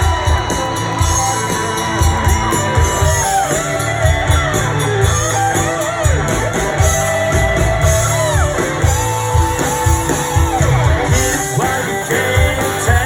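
Live rock band playing loudly: amplified guitar and a voice singing over a steady drum beat.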